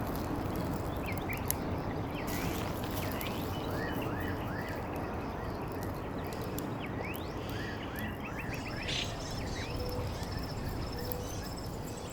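Outdoor night ambience: short rising animal chirps repeat over a steady rushing background, and a fine, high insect trill joins about two thirds of the way through.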